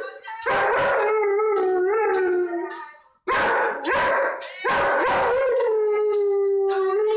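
A dog howling along to a song, in three long wavering howls; the last is held at a fairly steady pitch for over two seconds.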